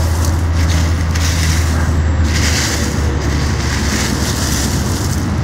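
Low rumbling wind noise on the phone's microphone, over an uneven crackly hiss that fits dry leaf litter being stirred and rustled.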